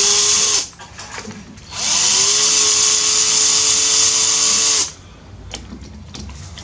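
Electric drill running in reverse with a socket adapter, undoing a bolt: a short run that stops about half a second in, then a longer run from about two seconds in that spins up in pitch and holds steady for about three seconds before stopping.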